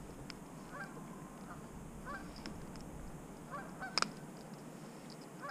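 Faint short bird calls repeated several times, over a quiet background, with a sharp knock about four seconds in.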